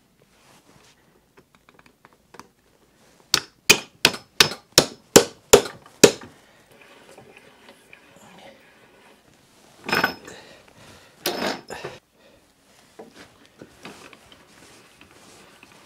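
Wooden handwheel and front vise of a workbench being worked by hand: a quick, even run of eight sharp knocks, then two longer clattering knocks a little later.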